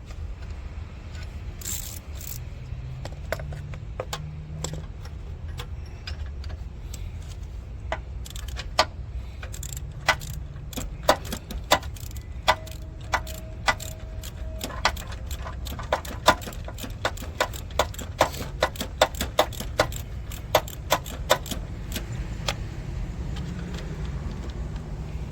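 Socket ratchet on an extension clicking in sharp metallic clicks as an oxygen sensor is tightened into the exhaust; the clicks come sparsely at first and then steadily, several a second, from about eight seconds in until near the end, over a steady low rumble.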